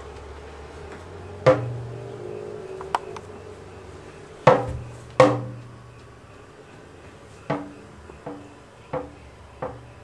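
Hand drum struck slowly, each stroke ringing with a low pitched tone that dies away. Two strongest strokes come close together in the middle, then lighter strokes follow at a steady, quicker pace of roughly one every two-thirds of a second.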